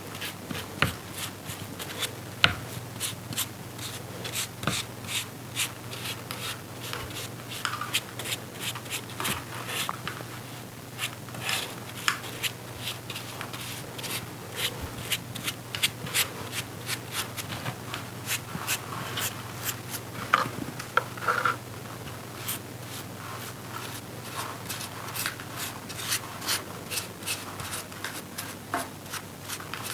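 A paintbrush rubbing and dabbing paint onto a 3D-printed plastic sculpture: many short, irregular brush strokes over a faint steady low hum.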